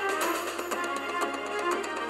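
Background music: an instrumental cinematic pirate-style tune over a steady beat.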